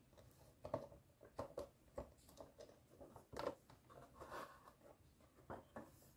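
Faint plastic clicks and taps from the doors of a toy refrigerator being handled and opened, about half a dozen in all, the sharpest about three and a half seconds in, with a short rustle just after.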